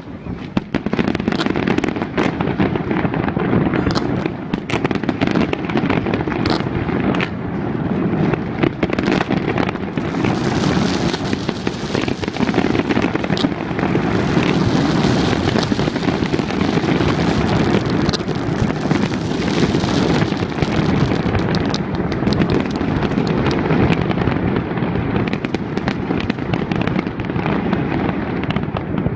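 A fireworks display in full barrage: a near-continuous run of bangs and booms, with a long stretch of dense crackling in the middle.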